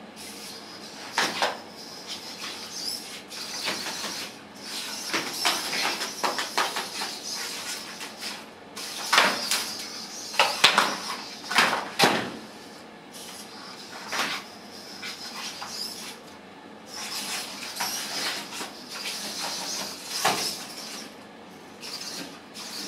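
Small humanoid wrestling robots with metal frames getting up from the mat and grappling: their servo motors whine while their limbs clatter and knock against the floor and each other. A cluster of louder knocks comes about halfway through.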